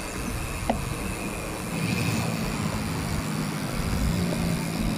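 Road traffic noise, with a motor vehicle's engine running close by from about two seconds in and getting a little louder. A single short click comes just under a second in.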